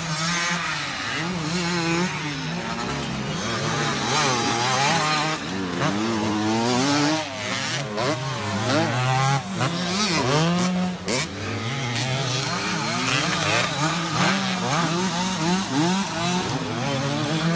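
Several motocross dirt bikes' engines revving hard, their pitch climbing and dropping over and over with several engines overlapping at once.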